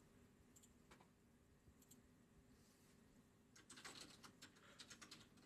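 Near silence with faint light clicks: a few scattered ones, then a quick run of them in the last couple of seconds.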